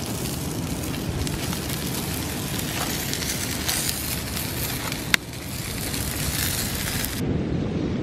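Chicken and meat sizzling on foil over a charcoal grill: a steady, even hiss of spitting fat, with one sharp pop about five seconds in. The sizzle cuts off about a second before the end.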